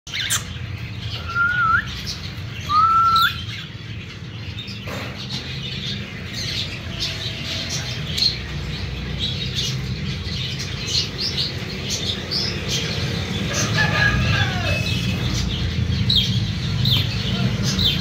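Caged cockatiels and a lovebird calling: two rising whistles near the start, then a steady run of short, high chirps, over a low steady hum.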